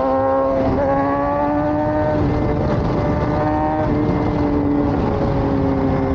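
Sport motorcycle engine running at freeway speed, its note rising gently and stepping in pitch a few times, under heavy wind rumble on the helmet microphone.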